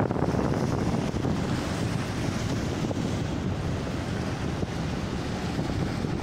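Small waves breaking and washing up over a beach of dark pebbles, a steady surf hiss, with wind buffeting the microphone.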